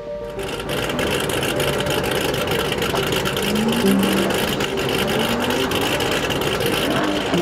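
A car engine accelerating as it pulls away, its pitch rising about three seconds in and again a couple of seconds later, over steady engine and road noise.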